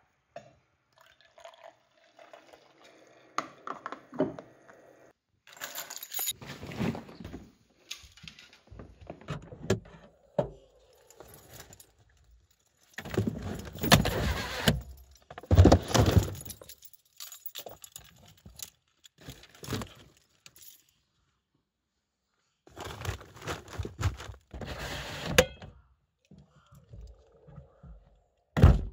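Fishing gear being handled and packed into a car boot: rustling bags, clinks and knocks in irregular bursts with short quiet gaps between them.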